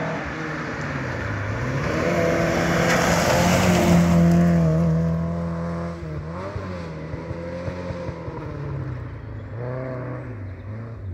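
A small-engined 1400cc-class rally car driven hard past on a gravel forest stage. The engine revs rise and fall with lifts and gear changes, loudest as it passes about four seconds in, then fading as it pulls away.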